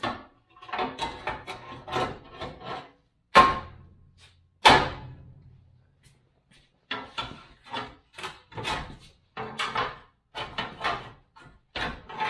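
Irregular metal knocks and clanks from the old steel rear bumper beam being worked loose from the frame, with two loud bangs about three and a half and five seconds in that each leave a short low ring.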